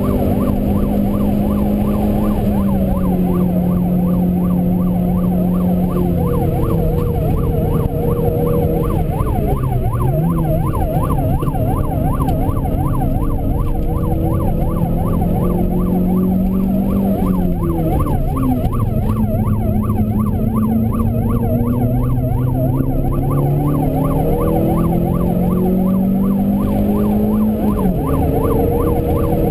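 Renault Clio 2.0 16V four-cylinder engine at high revs, heard from inside the cabin: the pitch holds high, drops sharply at gear changes and as the car slows for bends, then climbs again. A steady warbling, siren-like tone about four times a second runs under it.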